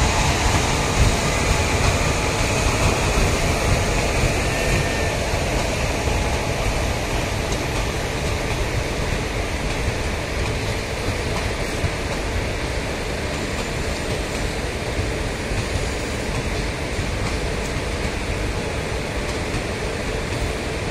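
Indian Railways passenger coaches rolling past at speed: a steady rumble of wheels on the rails, easing slightly toward the end.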